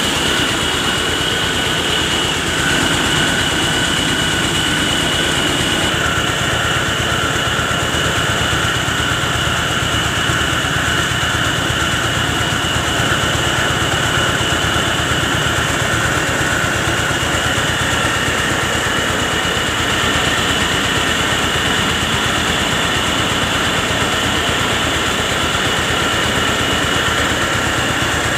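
Mobile rice mill running steadily as it mills paddy: the engine and milling machinery make a continuous mechanical noise with a steady high whine over it.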